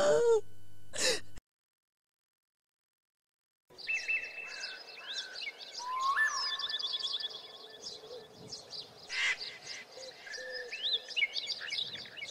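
Several small birds chirping and singing, with many short whistled notes and rising and falling calls overlapping. Before that, the tail of a crying scene with music cuts off about a second and a half in, followed by a couple of seconds of dead silence.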